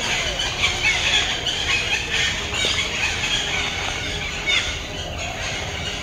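Many birds calling in the tree canopy: a dense chorus of short, high chirps and shrill calls overlapping.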